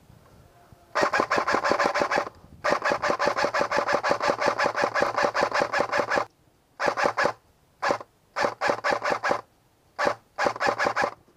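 Airsoft electric gun (AEG), a Sig 556, firing on full auto: a burst of rapid clicks about a second in, a longer burst of several seconds, then a string of shorter bursts toward the end.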